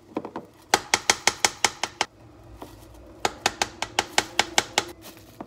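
Metal spoon clicking rapidly against a dish, in two runs of quick, evenly spaced clicks about seven a second, the first about a second in and the second near the end.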